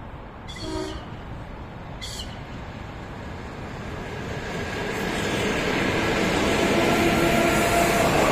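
ED4M electric multiple unit approaching and passing close by, growing steadily louder with a rising rumble of wheels on rails. Near the start come two short horn toots about a second and a half apart, the first the louder: the crew's greeting.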